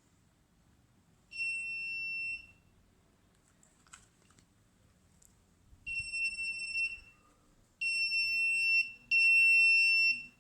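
Electronic buzzer on a fire-alarm receiver circuit beeping in a single high steady tone, four beeps of about a second each, the gaps between them getting shorter toward the end. The beeping is the alarm signal: the receiver has decoded the 'fire' message sent over a 433 MHz ASK radio link after the flame detector sensed a lit match.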